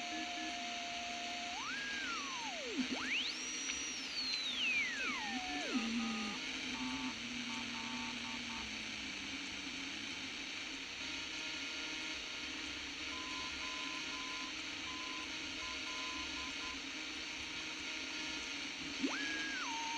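A simple direct-amplification radio receiver giving out static hiss with whistling tones that glide up and down in pitch, along with a few short beeps, as it picks up signals between stations.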